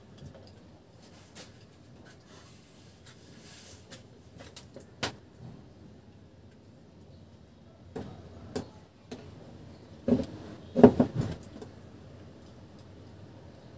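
Scattered clicks and knocks of wire leads being handled and connected on a wooden board. A cluster of louder knocks comes about ten to eleven seconds in.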